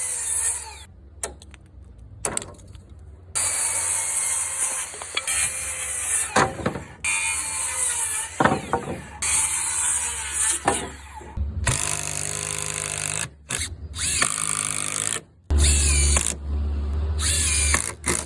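Cordless power tools in a quick series of short clips, motors spinning up and winding down, with abrupt cuts between them.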